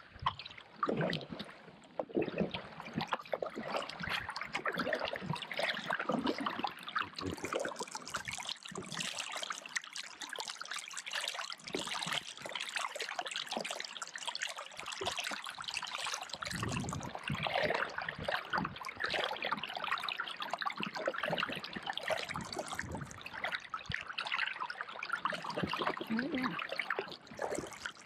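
Water trickling and splashing close to a kayak, a continuous run of small drips and splashes.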